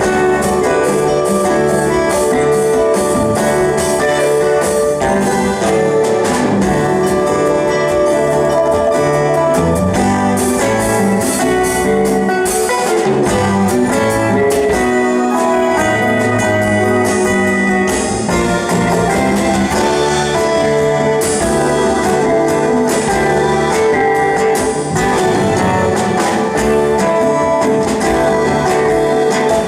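A band playing music live, a steady ensemble sound with held notes over a constant beat.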